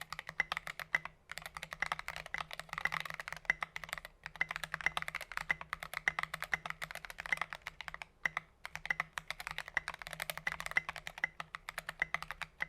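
Fast typing on a stock Keychron V1 mechanical keyboard fitted with SA-profile keycaps: a dense run of keystroke clacks, broken by three short pauses.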